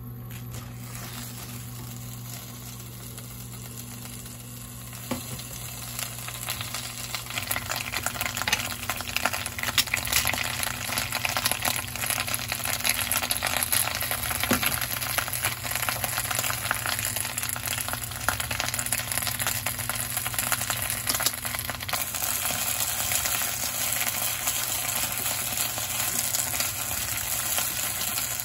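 Spinach sizzling and crackling in hot olive oil in a nonstick frying pan, starting about five seconds in, over a low steady hum.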